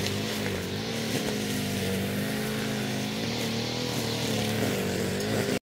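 Steady engine hum with a slightly wavering pitch over a background of noise, cutting off abruptly near the end.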